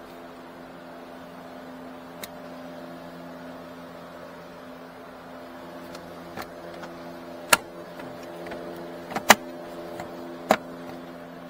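Plastic dashboard trim panels of a 2017 Nissan Rogue being pressed back into place by hand: several sharp clicks and knocks, the loudest in the second half, over a steady mechanical hum.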